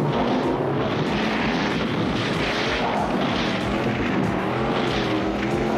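Cartoon car engine sound effect, running steadily with a pitch that wavers up and down, over a rushing noise.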